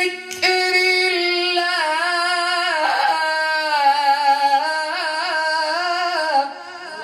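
A man reciting the Quran in the melodic, drawn-out tajweed style: after a brief breath he holds one long ornamented note that slowly falls in pitch, with quick wavering trills around the middle, and it breaks off near the end.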